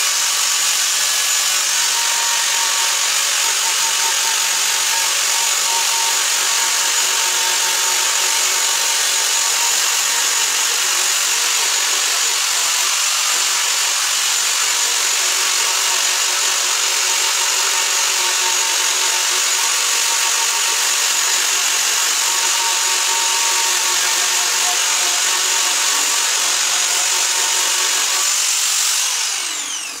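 Handheld angle grinder running steadily with a high whine, its disc grinding old paint off the sheet-metal panel of an air-conditioner condenser. Near the end it is switched off and the whine falls in pitch as the disc spins down.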